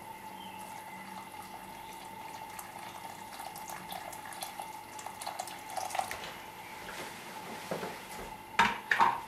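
Water poured into a saucepan of lamb shanks in stock, splashing into the bubbling liquid, with small pops and crackles. Two loud knocks near the end.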